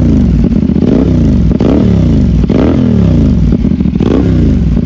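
A CFMOTO parallel-twin motorcycle engine with an aftermarket exhaust, blipped from idle about four times. Each rev rises sharply and falls back.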